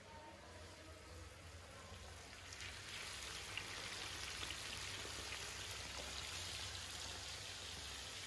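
Chicken kebab skewers deep-frying in hot oil in a cast-iron kazan: a steady sizzling hiss with small crackles, growing louder about three seconds in.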